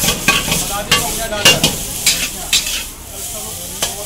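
Metal ladle clanking and scraping against a steel wok as noodles are stir-fried over high heat, with a steady frying sizzle underneath. The strikes come irregularly, a few a second, some leaving a brief metallic ring.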